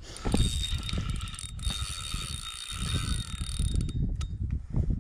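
Spinning reel being cranked close up, its gears giving a steady whine, while reeling in a hooked sharptooth catfish under load.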